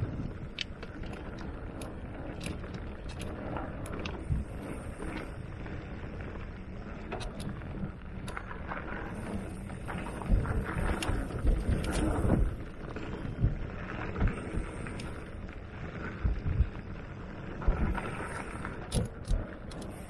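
Mountain bike rolling along a dirt singletrack: a steady rumble of tyres on the trail with wind on the microphone, and frequent short knocks and rattles from the bike over bumps and roots.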